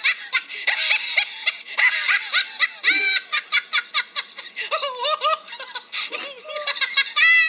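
High-pitched human laughter, a fast unbroken run of giggles and snickers.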